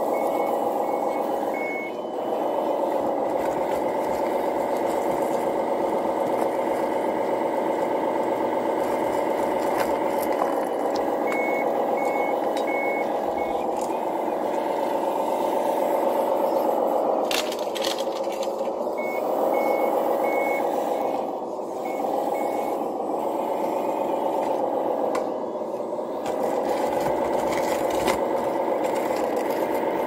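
RC scale wheel loader's hydraulic pump and motors whining, the pitch dipping and rising as it works, with a reversing beeper sounding in three short runs of beeps as it backs up: at the start, about a third of the way in, and about two-thirds through.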